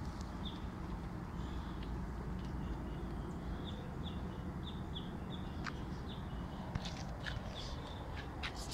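Short, high chirps repeating roughly twice a second, each falling slightly in pitch, over a steady low rumble, with a few faint clicks.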